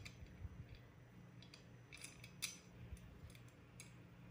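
Faint, irregular small metallic clicks of screws and T-nuts being handled and fitted into a 3D printer's frame bar, the strongest about two and a half seconds in.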